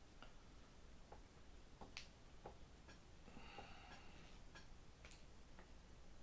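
Near silence with faint, scattered small clicks as tiny screws and a plastic control horn are handled and started into the aileron by hand, and a brief soft hiss a little past the middle.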